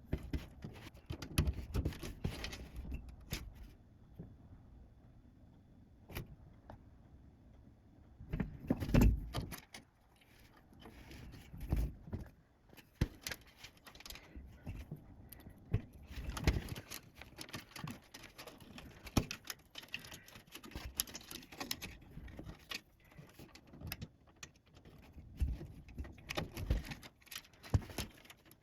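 Hands working on a desktop PC during assembly: irregular clicks, knocks and light metallic rattles of metal and plastic parts being handled and fitted.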